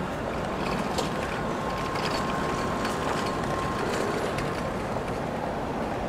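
Steady rush of an urban stream's running water mixed with city traffic hum. A faint steady whine sounds for about four seconds starting about a second in, and a few light clicks come about a second apart.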